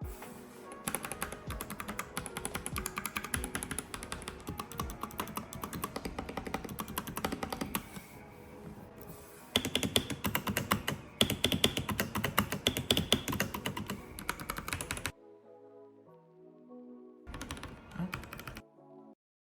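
Fast typing on mechanical keyboards, a Royal Kludge RK84 with yellow linear switches and an RK61 with brown switches, in long runs of rapid keystrokes. About ten seconds in the clatter turns louder and brighter, and near the end the typing stops for a moment and then comes back briefly. Background music runs underneath.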